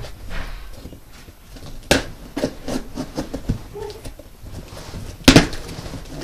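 A cardboard box being handled and opened: rubbing and scraping with a string of clicks and knocks, a sharp knock about two seconds in and a louder one near the end.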